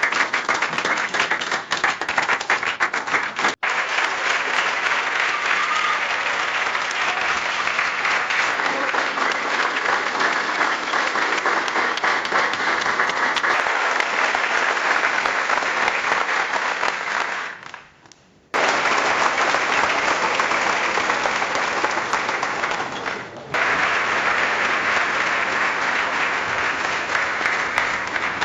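Crowd applause, several recordings of sustained clapping joined one after another. There is an abrupt break a few seconds in. About two-thirds of the way through, one applause fades out and the next starts suddenly. Near the end comes a short dip before another burst of clapping.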